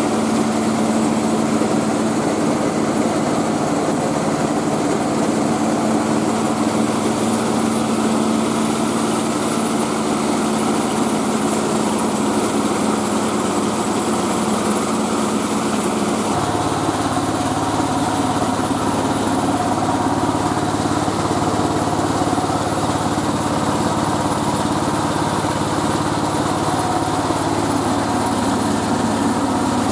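Engine of a mobile rice milling machine running steadily under way; a little past halfway its note changes and then holds steady again.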